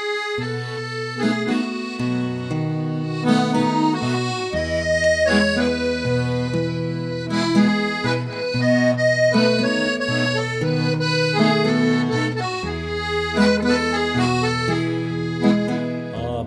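Accordion playing the instrumental introduction of a ranchera-style song, with long-held bass notes underneath.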